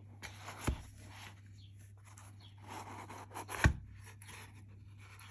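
Handling of the punch's original paper packaging: soft scraping and rustling, with two knocks, one under a second in and a louder one past halfway.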